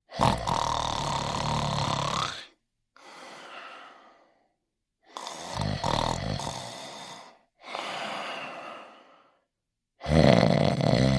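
Cartoon dog snoring in its sleep: three long, loud snores, each followed by a softer, shorter breath out.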